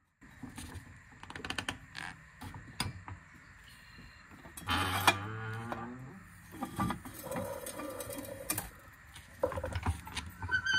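Irregular light clicks and metal clatter of tools being handled on a car up on a jack stand, with a louder grating scrape about five seconds in and a falling whine near the end.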